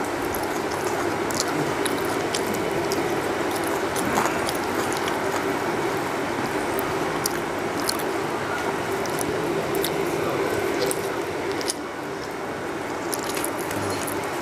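Fingers mixing rice and curry on a steel plate: scattered light clicks and squelches over a steady low hum.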